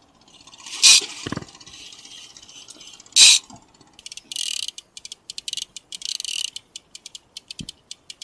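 Conventional fishing reel clicking like a ratchet, in short bursts and quick runs of clicks, as line is worked against a big cobia bending the rod. Two sharp, loud bursts come first, about a second in and again after three seconds.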